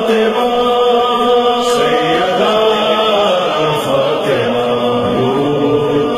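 Voices chanting a noha, an Urdu Shia lament, in long held notes that bend slowly in pitch, with several voices layered together and no instruments.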